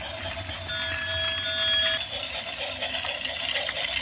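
Small electric motors of battery-powered toy trains whirring steadily as they run around plastic track, with a steady electronic beep-like tone lasting a little over a second early on.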